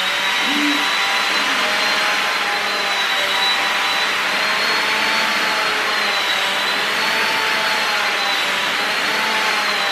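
Handheld hair dryer with a comb attachment blowing on long wig hair. It spins up at the very start with a rising whine, then runs steadily with a loud rush of air and a high motor whine.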